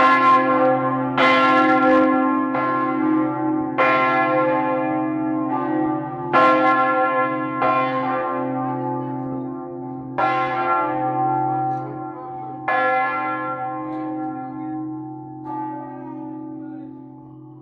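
Church bell struck about nine times at uneven intervals. Each stroke is bright with overtones and dies away over a steady low hum that rings on between strokes, fading toward the end.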